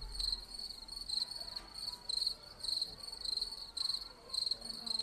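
A recording of crickets chirping, played back through a speaker: a high, even chirp repeating steadily about three times a second.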